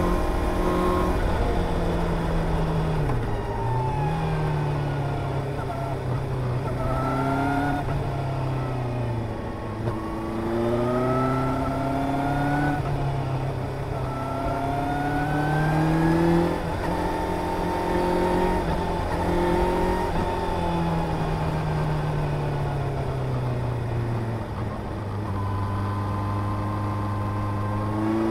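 Suzuki GSR 750's inline-four engine pulling up through the revs and easing off again and again through the bends, its pitch rising and falling, over a steady low rumble of wind on the microphone.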